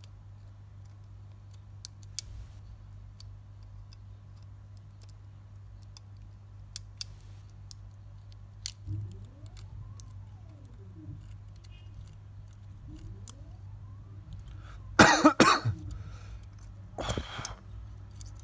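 Small tool clicks and taps over a steady low electrical hum, then a person coughs twice near the end.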